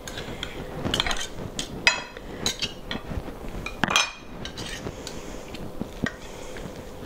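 Knife and fork scraping and clinking against a ceramic serving platter while shredding tender pulled pork. Two sharper metallic clinks ring briefly, about two and four seconds in.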